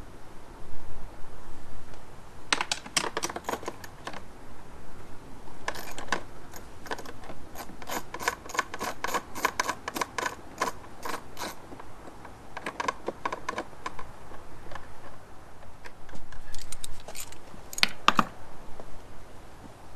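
Hand socket ratchet clicking in quick runs as the 10 mm bolts holding the outboard's covers are turned out. There are several bursts of rapid clicks with short pauses between them.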